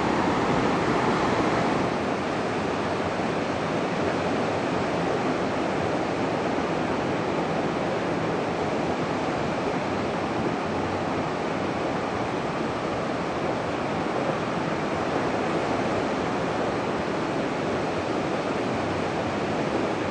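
Ocean surf: a steady wash of breaking waves, dropping slightly in level about two seconds in.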